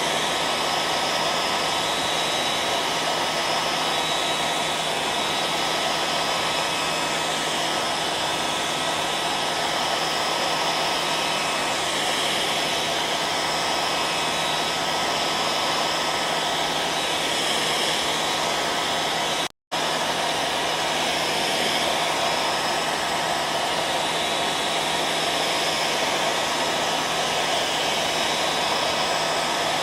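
Hair dryer blowing steadily, a wide, even hiss with a faint steady whine. About two-thirds of the way through it cuts out for a split second and picks straight up again.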